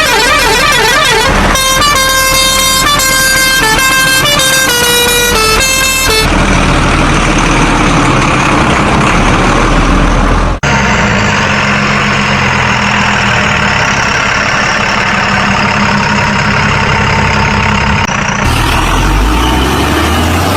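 A string of loud, spliced-together truck sound effects. A warbling siren is followed by a tune of stepped horn notes, then truck engine sound. After a sudden cut about halfway through, a steady engine drone runs, and the sound changes again near the end.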